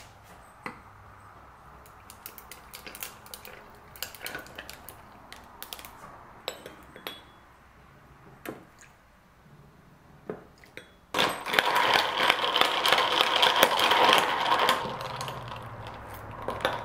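Scattered light clicks and knocks, then about 11 seconds in ice cubes clatter loudly into a glass in a dense rattle for about four seconds before tailing off.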